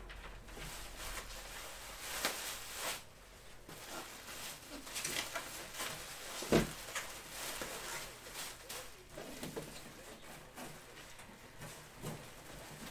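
Scattered handling noises of a boxed item being unpacked: rustling of packaging with clicks and knocks, and one sharp, louder knock about six and a half seconds in.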